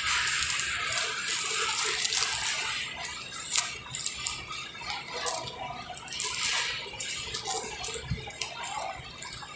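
Clear plastic document sleeves and papers crinkling and rustling as they are handled close to the microphone, with many small clicks and crackles.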